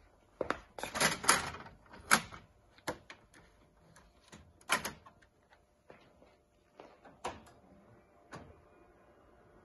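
Plastic clacks and clicks of an OKI printer's front multipurpose tray being opened and set up, with paper handling as a large sheet of sticker media is laid in and pushed into the feed. The loudest knocks come in the first two seconds and again about five seconds in, then the clicks thin out.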